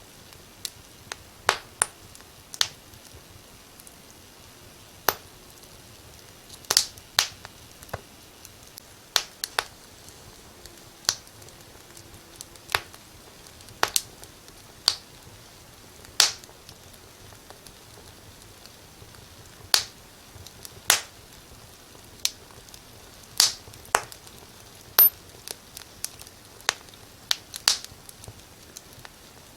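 Wood fire crackling: irregular sharp pops and snaps, one or two a second, over a faint steady hiss.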